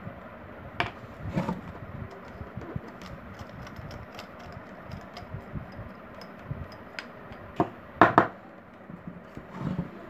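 Sharp metal clicks and knocks of a screwdriver prying and levering at the end cover of a table fan motor's casing to get it off, a few scattered strikes with the loudest pair about eight seconds in, over steady low background noise.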